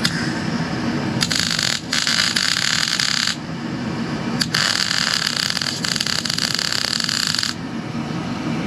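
MIG welding arc on steel, crackling in runs: a short burst about a second in, a longer one to about three seconds, then a run of about three seconds from about four and a half seconds. The welding is patching cracks in a steel dumper body, with a steady low hum underneath.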